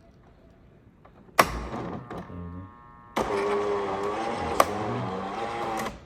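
JURA Impressa C9 super-automatic espresso machine working through a double espresso: a sharp click, then a loud rough buzz with a wavering pitch from about three seconds in, broken by another click.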